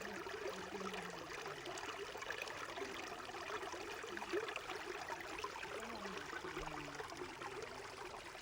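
Small stream babbling and trickling steadily.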